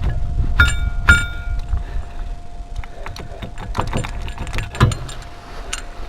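Metal brake parts and tools being handled, with a run of sharp clinks and knocks. Two clinks about half a second apart ring briefly like struck steel. A faint steady tone sits underneath.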